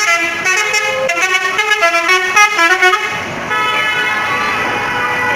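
Indonesian bus telolet horn playing a quick tune of changing notes, which stops about three seconds in. A steadier single tone holds after it.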